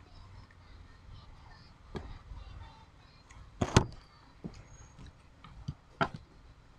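Metal spoon and fork clinking and scraping on a ceramic plate of rice while eating. About five sharp clicks; the loudest comes a little past the middle and another near the end.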